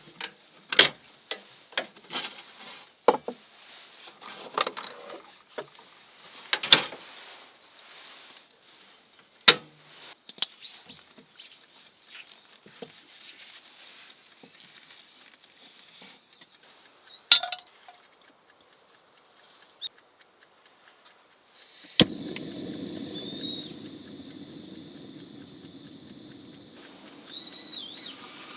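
Food-preparation handling sounds: scattered sharp clicks and knocks of utensils and containers with quiet gaps between them. About three quarters of the way through, a sharp knock is followed by a steady low rushing noise that runs on to the end.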